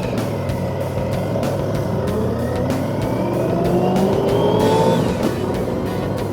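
Motorcycle engine accelerating, its pitch climbing for a couple of seconds and then dropping sharply near the end at a gear change, over a steady rush of noise.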